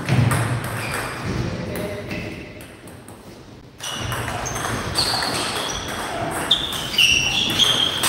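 Table tennis doubles rally: the celluloid-type ball clicking off rubber paddles and the table in quick exchanges. The rally starts about halfway through, after a quieter lull.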